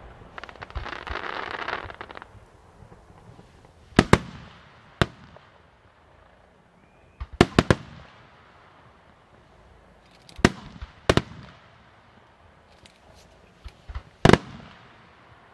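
Fireworks display: a dense crackle for the first two seconds, then sharp aerial shell bursts every few seconds, some single and some in quick clusters of two or three.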